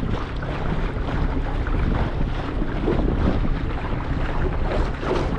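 Wind buffeting the microphone on a small boat, with choppy lake water splashing around the hull: a steady, loud rumble and wash.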